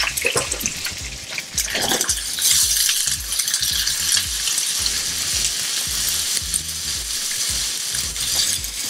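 Sliced onion and garlic sizzling in hot oil in a nonstick frying pan, stirred with a plastic slotted spatula that clicks and scrapes against the pan. The sizzle grows louder about two and a half seconds in.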